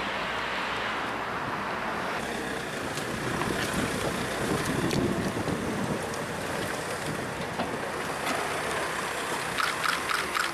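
Steady outdoor street noise: wind rushing on the microphone over traffic, with a few short clicks near the end.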